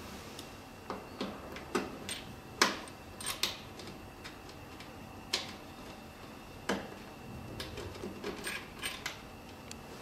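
Irregular clicks and light knocks of the emergency-stop handle's cable and metal circular connector being handled and pushed onto its socket on the back panel of a cryolipolysis machine. The sharpest click comes a little over two seconds in.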